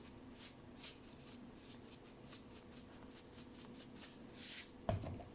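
Salt being sprinkled into a glass: a run of faint, short, high crackles and ticks, with a brief hiss about four and a half seconds in and a soft knock near the end.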